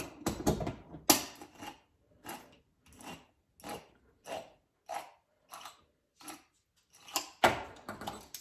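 Kitchen handling sounds: a run of short, evenly spaced clicks or snips, about one every two-thirds of a second, with louder clatter at the start and near the end.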